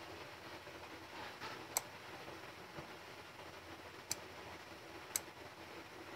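Quiet room tone with three faint, sharp, unevenly spaced clicks.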